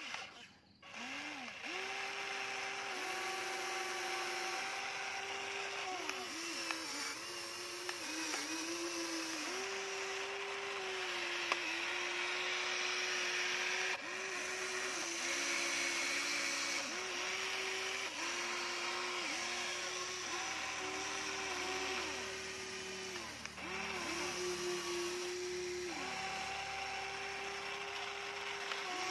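Electric motors of a Huina radio-controlled toy excavator whining as the boom, arm and bucket move, over a steady hiss. The pitch steps up and down and dips briefly each time a motion starts or stops.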